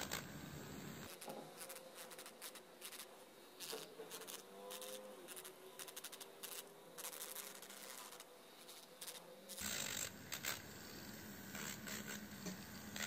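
Faint scratching and rubbing of an electric nail file's sanding band working over the surface of a fingernail, with light clicks of handling, as the nail is buffed to prepare it for gel.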